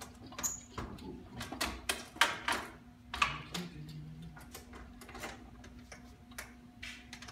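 Metal clicks and clunks from the vend mechanism of a 1950s Vendorlator VMC 33 Coke machine being turned by hand: a quick run of them over the first few seconds, then a few scattered ones. A steady low hum runs underneath.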